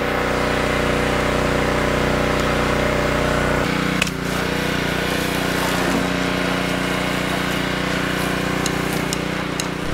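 Honda 187 cc single-cylinder engine of a Craftsman 3200 PSI gas pressure washer running steadily under load, with the hiss of water spraying from the wand. The engine's tone shifts abruptly about three and a half seconds in.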